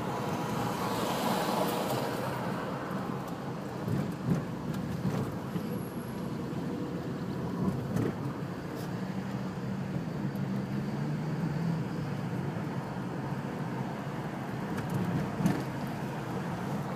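A car driving along a city road, heard from inside: steady engine and tyre hum, with a few brief knocks about four, eight and fifteen seconds in.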